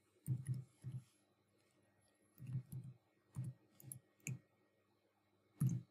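Computer keyboard being typed on: about a dozen single keystrokes and short runs of two or three, with pauses between them.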